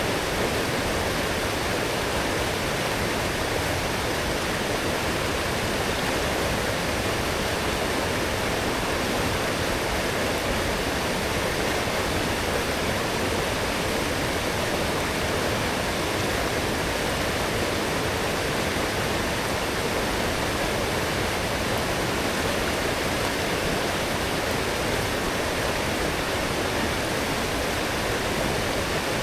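Strong forest stream swollen after heavy rain, water rushing and splashing in a steady, even flow.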